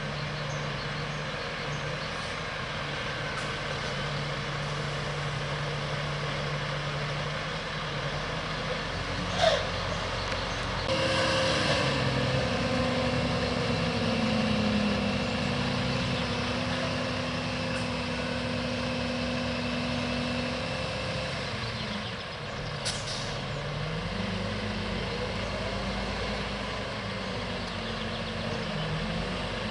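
Diesel engines of a Claas Xerion 4200 tractor and a slurry tanker truck running side by side while slurry is transferred through the tractor's front suction arm. About nine seconds in comes a short sharp hiss, then a louder, higher-pitched machine drone joins in for about ten seconds before easing back, and a second short hiss follows.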